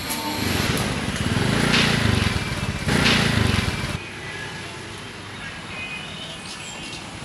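Street traffic: two vehicles pass close by, each swelling up and fading, then the sound drops suddenly to a quieter, steady street background.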